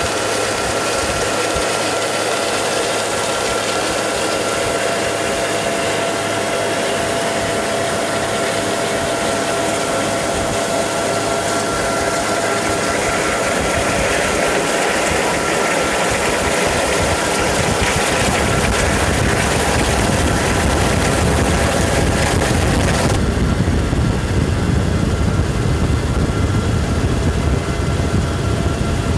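Helicopter in flight heard from on board: steady turbine whine and rotor noise. The low rumble grows louder about two-thirds of the way through, and the high whine drops away a few seconds later.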